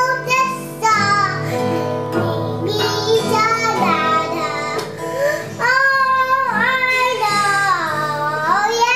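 A toddler singing tunelessly in a high voice while strumming the open strings of an acoustic guitar, the strings ringing on. In the second half the voice holds long sliding notes.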